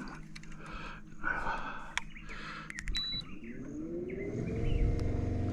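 A short high beep about three seconds in, then an electric bow-mount trolling motor spinning up, its whine rising in pitch and then holding steady. A few sharp clicks come just before the beep.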